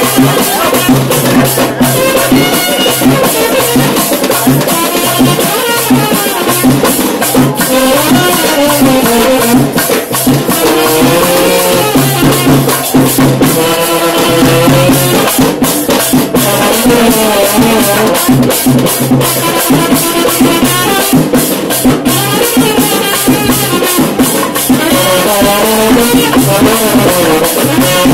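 Live ritual dance music: loud, dense drumming with rattles, under a wavering melody played on wind instruments, continuous throughout.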